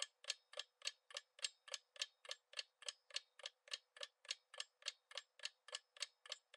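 Countdown timer sound effect: a clock ticking steadily at about three and a half ticks a second.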